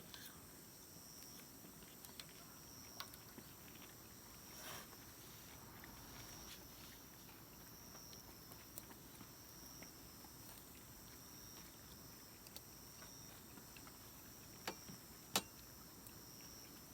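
Faint outdoor ambience: a high, thin insect chirping that pulses about once a second over a low hiss. Scattered small clicks come through it, with a sharper click about fifteen seconds in.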